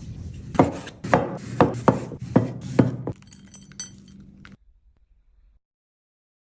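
A quick run of six sharp knocks and clinks, typical of kitchen utensils or glassware handled on a hard surface, then a couple of faint clinks. About four and a half seconds in, the sound cuts off to silence.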